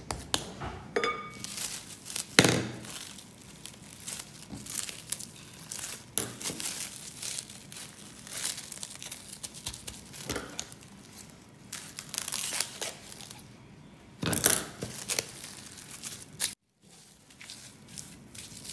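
Plastic cling wrap crinkling and rustling as hands fold it around a block of cookie dough and smooth it flat. A sharp thump sounds about two seconds in, and a louder rustle comes near the end.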